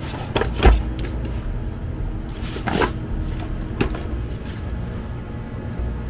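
Cardboard retail box handled and turned by gloved hands: a few short scrapes and knocks, the loudest about two-thirds of a second in, with more near three and four seconds, over a steady low background.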